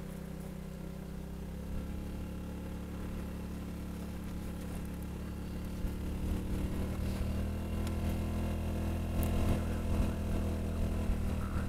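Honda Helix scooter's single-cylinder engine running steadily under way, getting louder about halfway through.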